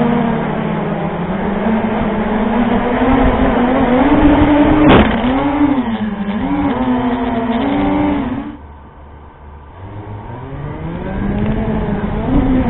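Small quadcopter's motors and propellers buzzing, the pitch wavering with the throttle. A sharp knock about five seconds in as the drone hits the ground, the buzz warbling on, then dropping to a low hum near nine seconds before spinning back up with a rising pitch as it lifts off again.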